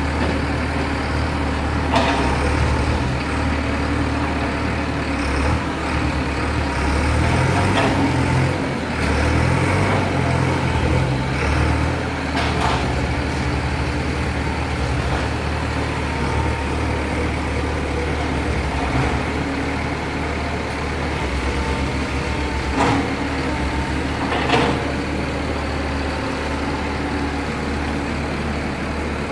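Long-reach excavator's diesel engine running steadily, working harder for a stretch partway through. A few sharp knocks or clanks are heard now and then over the engine.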